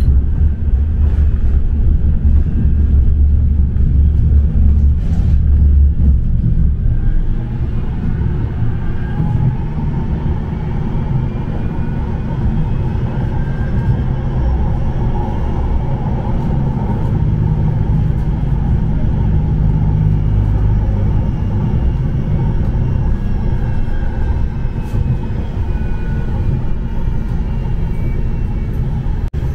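Interior running sound of a Bombardier M5000 Metrolink tram under way: a heavy, steady rumble of wheels on rail, heaviest for the first several seconds. Faint whining tones rise and fall through it.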